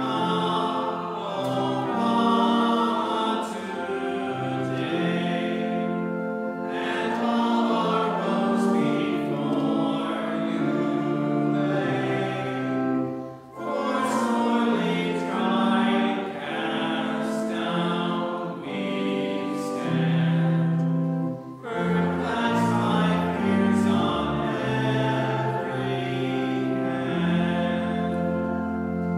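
A hymn sung by many voices with organ accompaniment, held notes moving phrase by phrase, with short breaks between lines about 13 and 22 seconds in.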